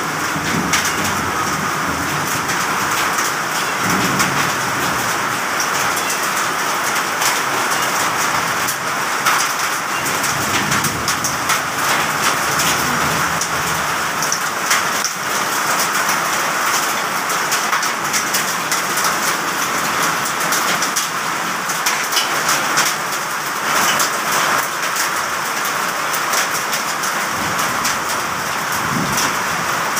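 Heavy rain pouring steadily, with a dense crackle of drops striking hard surfaces close by.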